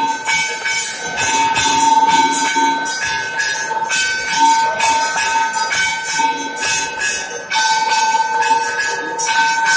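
Temple bells and cymbals ringing continuously during worship at a Hindu shrine: repeated metallic strikes a few times a second over a steady ringing tone.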